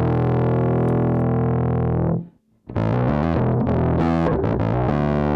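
Electric bass played through a guitar distortion patch on a Zoom MS-50G multi-effects pedal: a held, heavily distorted note that dies away, a brief cut-out about two seconds in, then a run of quicker distorted notes. Guitar distortion like this has less body on bass.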